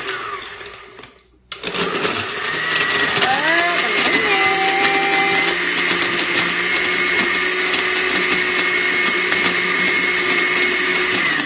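Countertop blender crushing ice cubes into a pumpkin smoothie. It runs briefly, stops for a moment, then runs continuously: the motor speeds up over a couple of seconds, holds a steady pitch, and winds down at the very end.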